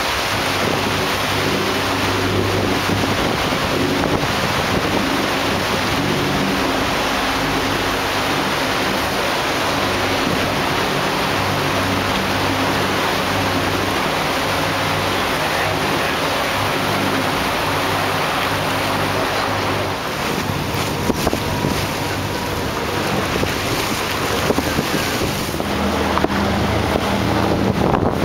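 Open tour boat under way: its engine hums steadily beneath wind buffeting the microphone and water rushing past the hull.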